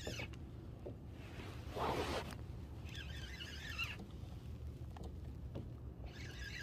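Spinning reel cranked in short spurts of about a second each, three times, giving a buzzing whir from the reel's gears as line is wound in between jig strokes. A louder brief rushing noise comes about two seconds in, over a steady low rumble.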